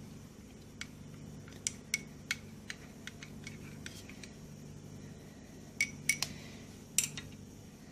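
A spoon clinking against the pot in irregular light taps as honey is stirred into the hot milk to dissolve it. Each tap rings briefly, and a faint steady hum runs underneath.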